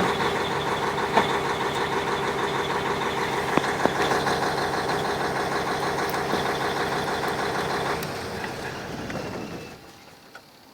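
YaMZ-6581.10 V8 turbodiesel idling with a fast, even knock that the owner cannot account for. About eight seconds in the engine note drops, and it runs down and stops near the end.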